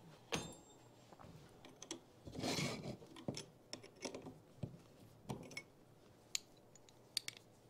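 Small metal clicks and taps of hand work on a foosball rod's end fittings: a small tool on little screws and parts being handled. A brief scraping rasp comes about two and a half seconds in.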